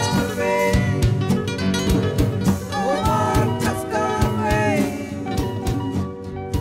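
Music: a song with a steady drum beat, about two hits a second, and a gliding melodic line, likely the singer's voice between lyric lines.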